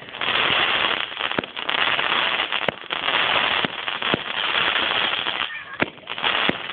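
Fireworks going off: repeated stretches of dense crackling, each about a second long, broken by several sharp bangs.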